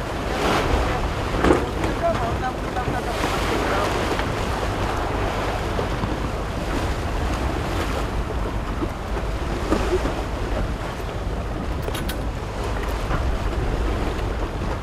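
Wind buffeting the microphone over the rush and splash of choppy sea water, with a louder surge about a second and a half in.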